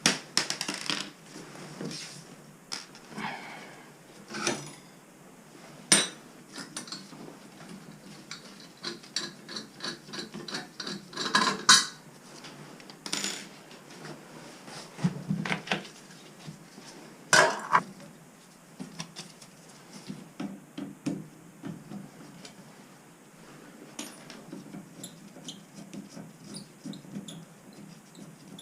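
Metal tools and plumbing parts clinking, tapping and scraping during repair work: a long run of irregular sharp knocks and clicks, a few of them much louder, with rubbing and handling noise in between.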